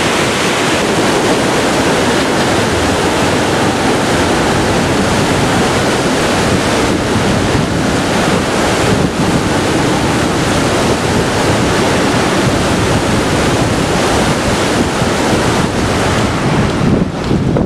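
Loud, steady rush of Sapta Koshi floodwater churning at the Koshi Barrage, mixed with heavy wind buffeting the microphone.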